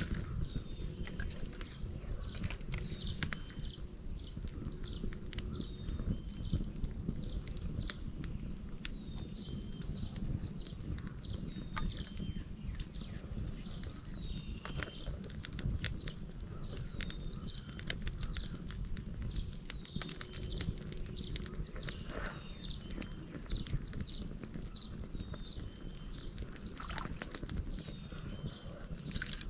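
Wood fire crackling with scattered sharp pops, while birds chirp over and over. A steady low rumble runs underneath.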